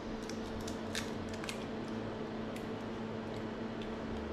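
Eggs being cracked and separated: a scatter of light clicks and taps of eggshell against bowl rims, over a steady low hum.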